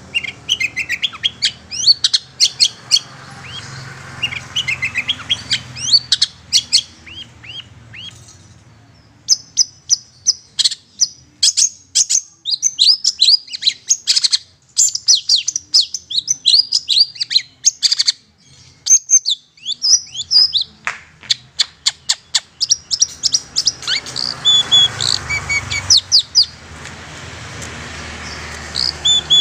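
Long-tailed shrike (cendet) calling in a rapid, chattering stream of sharp notes, the lure call used to draw in wild shrikes. The calls break off briefly about eight seconds in and again about nineteen seconds in.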